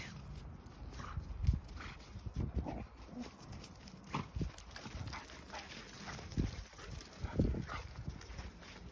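A dog playing with a ball in snow: short, irregular grunts and snuffles with scuffing sounds.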